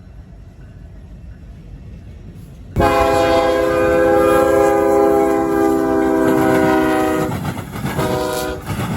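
Diesel freight locomotive's multi-note air horn sounding one long blast of a steady chord about three seconds in, then a short second blast, over the low rumble of a passing train.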